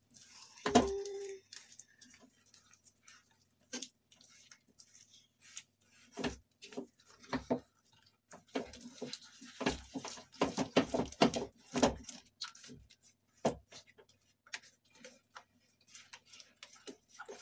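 Spatula stirring and scraping a thick mawa-and-jaggery mixture in a nonstick kadhai, with irregular knocks against the pan as the jaggery melts in. A brief whine sounds about a second in, and a faint steady hum lies underneath.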